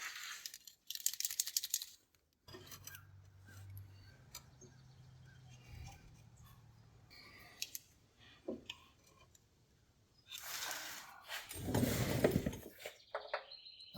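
Small metal parts and hardware clicking and jangling as they are handled, in a quick run of clicks at the start. A faint low hum follows, then a louder scuffing noise near the end.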